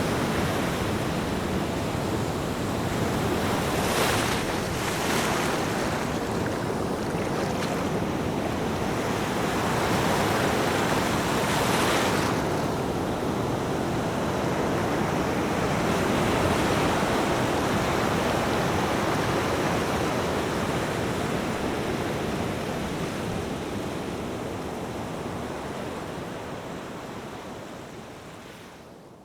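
Ocean surf: waves breaking and washing in a continuous rush, with louder breakers about four, five and twelve seconds in. The sound fades out over the last several seconds.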